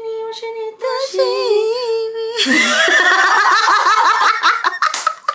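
A woman singing unaccompanied, holding a couple of long wavering notes, then breaking into high laughter about two and a half seconds in.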